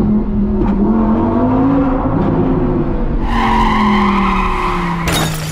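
Cartoon race car engine sound effect, its pitch rising and falling as the car drives past, then a tire screech starting about three seconds in. A sharp hit comes near the end.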